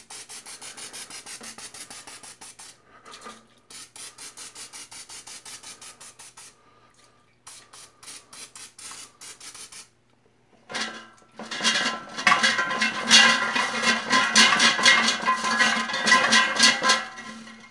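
Olive oil cooking spray hissing onto popcorn chicken in an air fryer basket, in several bursts; the last burst is the longest and loudest.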